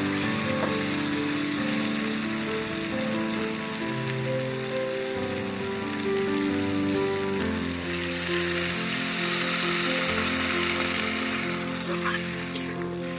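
Small hilsa, potatoes and eggplant sizzling in oil in an iron kadai, with the hiss growing stronger about eight seconds in as water goes into the hot pan. A metal spatula taps once near the end. Background music with a slow melody plays throughout.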